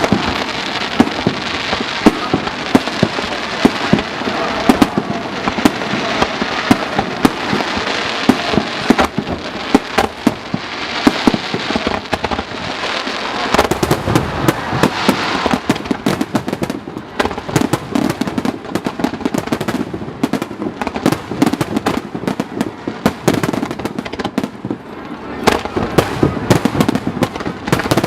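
Fireworks display: a dense, continuous barrage of shell bursts and crackling, many bangs a second. A fresh surge of bursts comes about halfway through.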